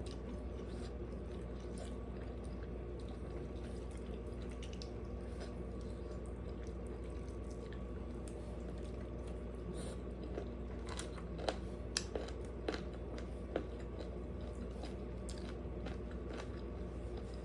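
Close-up chewing of food, with a run of sharp crunching bites about two-thirds of the way in, over a steady low hum.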